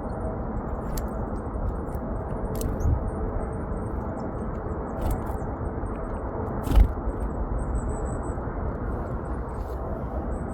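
Steady wind noise on the microphone, with faint high chirps of small mountain birds and a few sharp knocks, the loudest about two-thirds of the way through.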